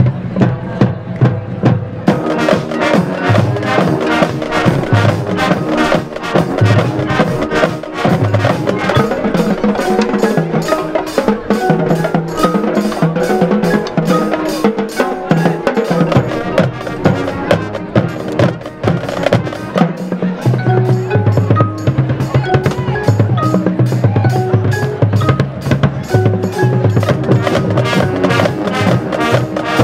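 High school marching band playing its field show with percussion to the fore: drumline strokes, bass drum hits and rapid mallet-keyboard notes from the front ensemble, in a steady driving rhythm. It grows fuller about two seconds in.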